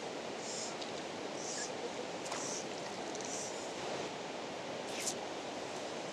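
Steady outdoor wind noise on the microphone beside a pond, with faint soft high hisses about once a second and two sharp clicks.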